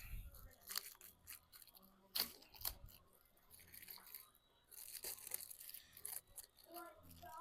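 Faint handling noises from a new door-handle set being unpacked: packaging crinkling and tearing, with scattered light clicks of the parts.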